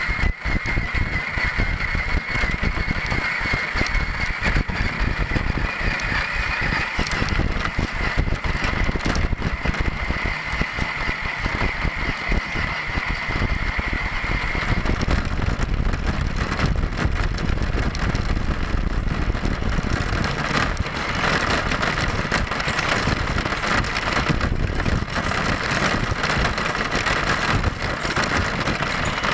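Electric motor and gears of a 1/10-scale Axial Deadbolt RC crawler whining as it drives, heard through its onboard camera, over a steady rumble and rattle from the tyres and chassis on rough ground. The whine drops away for several seconds midway, then returns.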